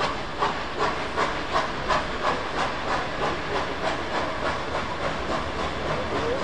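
Exhaust of the ex-SNCF 141R 1244 two-cylinder steam locomotive, chuffing in a steady rhythm over a hiss of steam while working a train. The beats come about three a second and quicken slightly as it picks up speed.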